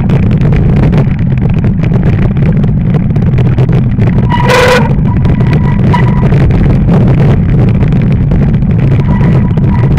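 Heavy wind buffeting on an action camera's microphone and fat tyres rolling over packed snow during a fast fatbike descent, a loud steady rumble. About four and a half seconds in, a short pitched tone sounds for about half a second, with fainter thin tones later.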